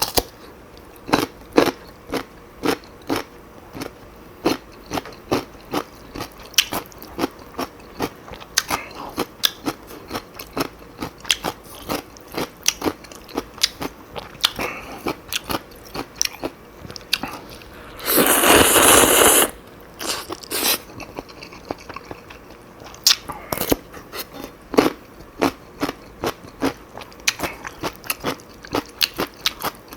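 Close-miked eating: crisp bites and chewing of crunchy kimchi with Chapagetti noodles, many short sharp crunches spread through, and one loud rushing burst about a second and a half long a little past halfway.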